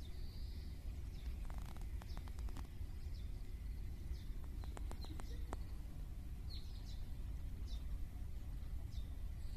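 Small birds chirping, short high calls about every second, over a steady low rumble. Two brief clusters of sharp ticks come about two and five seconds in.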